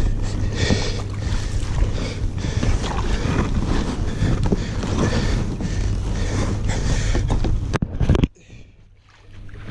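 Water rushing and splashing around a plastic sit-on-top kayak in a shallow, fast stretch of river, a steady rushing noise with a low rumble. A little after eight seconds it drops suddenly to a faint, muffled hush, as if the microphone were covered.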